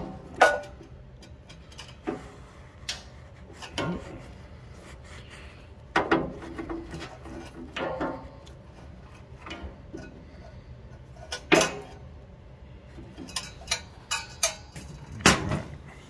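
Pliers gripping and working a small part on a small engine, giving scattered metal clicks, taps and clunks at irregular intervals, a few of them sharper and louder.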